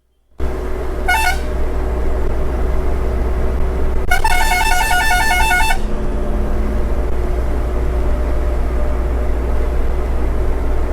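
Truck horn sounded twice: a short toot about a second in, then a longer warbling blast of about a second and a half, over the steady low drone of a truck's diesel engine.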